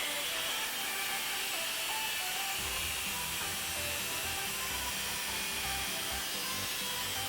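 Background music: sustained melodic tones, with a low bass beat coming in about two and a half seconds in.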